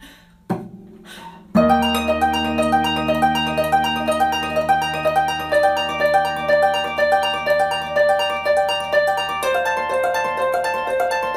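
Background music of rapid, evenly repeated plucked notes at several pitches, starting about a second and a half in after a quiet stretch with a few faint clicks.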